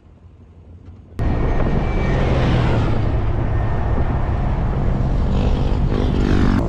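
Faint low rumble, then about a second in a loud off-road vehicle engine running hard on the sand dunes, starting abruptly.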